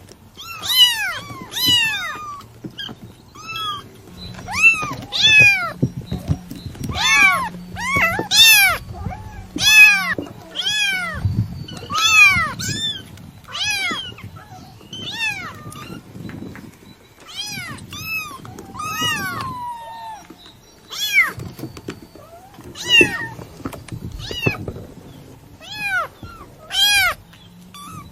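Kitten meowing repeatedly: about twenty high-pitched calls, each rising then falling in pitch, with short gaps between them.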